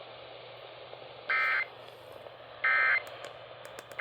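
Emergency Alert System end-of-message (EOM) data bursts received over AM radio: two short bursts of warbling digital tones about 1.4 s apart, with a third starting right at the end, over radio hiss and faint static crackles. The bursts signal the end of the severe thunderstorm warning alert.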